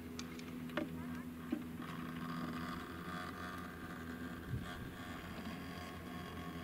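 1974 GMD Müller T-bar ski lift running: a steady low mechanical hum from the lift's drive and cable, with a few sharp clacks from the line.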